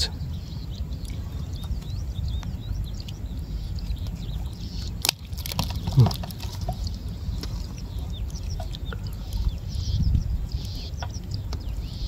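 Small birds chirping high and thin over a low steady rumble, with faint light ticks and rustles of a nylon gill net being handled. A sharp click comes about five seconds in.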